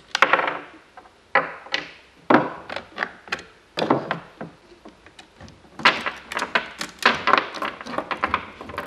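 Sharp metal clinks and knocks as a chainsaw's bar nuts are undone with a box wrench and the sprocket cover is taken off and set on a wooden bench. From about six seconds in comes a dense run of clicks: the saw chain rattling as it is lifted off the guide bar.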